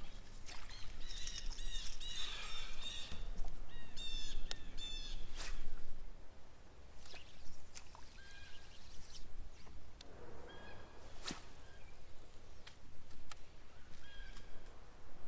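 Birds calling in quick runs of repeated chirps, followed by a few single short notes, with several sharp clicks in between.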